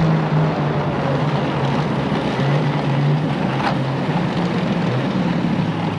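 Snowmobile engine running steadily while under way, with wind and track noise over it; the engine pitch eases down slightly near the start.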